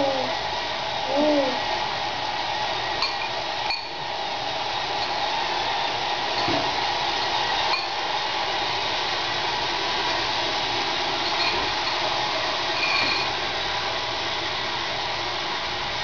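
A baby cooing briefly twice in the first second or two, short pitched sounds that rise and fall, over a steady hiss that runs on with a few faint clicks.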